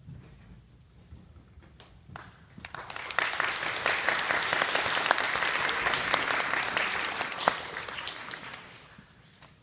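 Audience applauding, building up about two and a half seconds in and dying away near the end.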